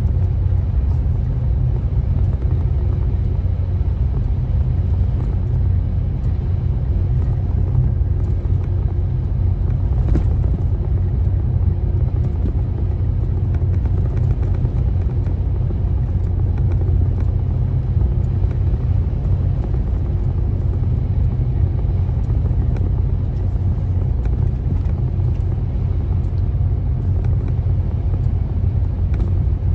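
Steady low rumble of engine and road noise from a vehicle cruising on a highway.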